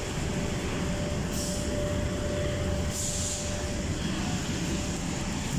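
Forklift running steadily with a low rumble and a thin whine that stops about four seconds in, with two short hisses about one and a half and three seconds in.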